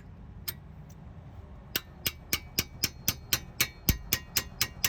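Ratchet wrench clicking in a steady, even run of about four clicks a second, starting just under two seconds in, as it tightens the lower brake caliper bolt.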